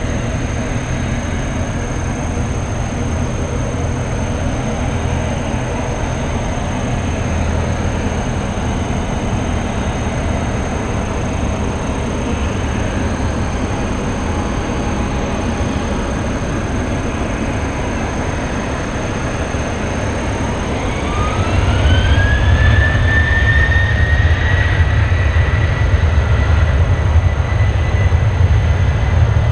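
Boeing 737-800's CFM56-7B turbofan engines running at low thrust as the airliner taxis. About two-thirds of the way through they spool up: a whine rises and then holds at a steady pitch, and the rumble grows louder, as thrust is set for the takeoff roll.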